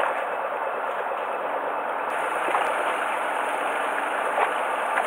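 Steady rushing noise aboard a fishing boat at sea, the drone of boat and water with no distinct events apart from a few faint clicks.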